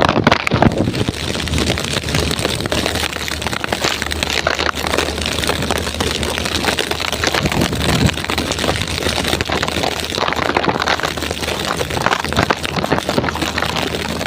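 Heavy rain pouring down in a storm, a dense steady hiss of rain.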